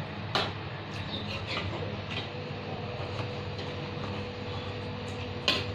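Steady hiss of a pan of fish curry cooking on the stove after water has gone in, with a faint steady hum, and a few sharp clicks of a utensil against the pan, the clearest about half a second in and near the end.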